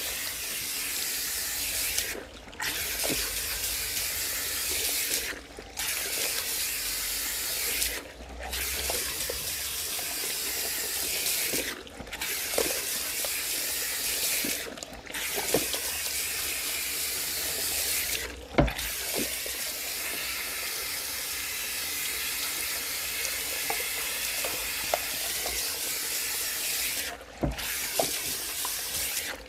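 Salon shampoo-basin hand sprayer running over hair, a steady hiss of water splashing on the head and basin as the hair is rinsed, here washing out the magic-straight softening solution. The spray breaks off for a moment about every three seconds, with small clicks and splashes of handling in between.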